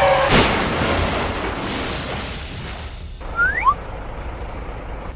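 A boom sound effect: a sudden blast that fades away over a couple of seconds, followed by two short rising whistles.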